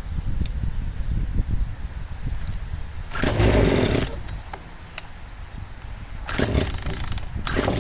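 Craftsman two-stroke chainsaw being pull-started: several sharp pulls on the recoil starter crank the engine over without it catching.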